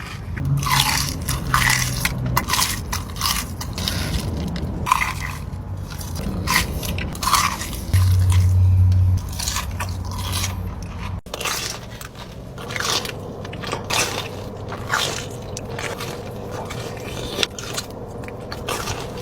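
Close-miked biting and chewing of fried mozzarella sticks: irregular crunches and crackles of the breaded coating with wet chewing between them. A low rumble lasts about a second around eight seconds in.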